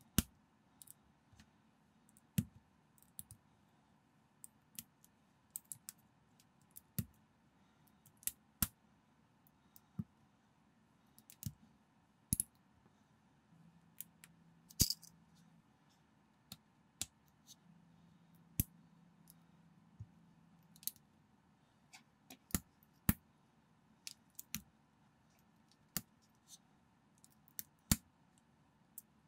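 Small plastic building bricks being pressed and snapped together by hand: a run of sharp, irregular clicks, some louder than others.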